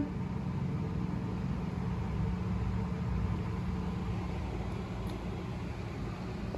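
Steady low hum and rumble of background machine noise, unchanging throughout, with no voices.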